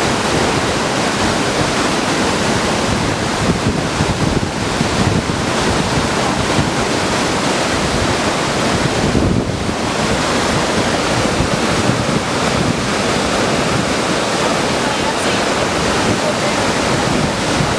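Rainbow Falls pouring: a steady, loud rush of falling water with no let-up.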